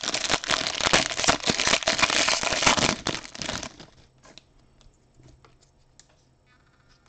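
Foil wrapper of a Topps Deco trading-card pack being torn open and crinkled by hand, stopping about three and a half seconds in. After that, only faint light ticks as the card stack is handled.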